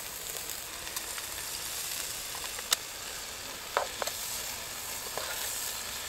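Diced bacon, sausage and onion sizzling steadily in oil in a small Trangia storm-cooker pot, with a few sharp clicks of a spoon against the pot as it is stirred.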